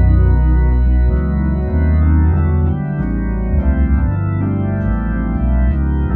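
Hammond A100 organ played through a Leslie 45 speaker, with the first six drawbars pulled all the way out: sustained chords on the lower manual over bass pedal notes, moving to a new chord every second or so.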